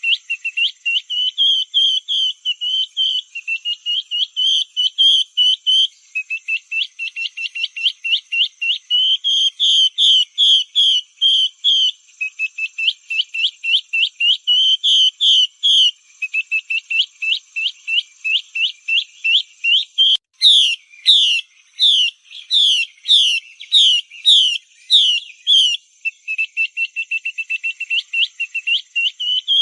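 Female Chinese hwamei calling, a recorded lure call for drawing in hwamei: fast runs of short, high chirping notes in phrases of about two seconds. About two-thirds of the way through comes a slower series of louder notes that sweep higher.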